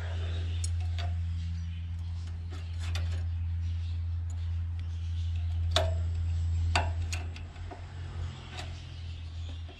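Small metal clinks and ticks of spanners and throttle-linkage parts being handled, a few sharp ones standing out about six and seven seconds in, over a steady low hum.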